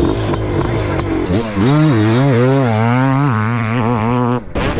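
Two-stroke dirt bike engine revving hard, its pitch rising and falling over and over as the throttle is worked, then cutting off suddenly near the end.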